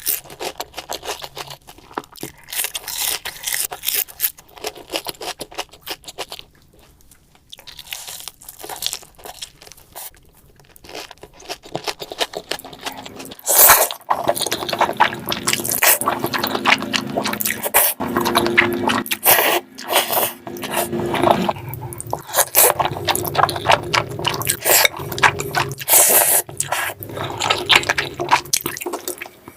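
Close-miked eating sounds: crunchy food being bitten and chewed, with scraping. The sounds thin out for a few seconds, then grow louder and denser about halfway through.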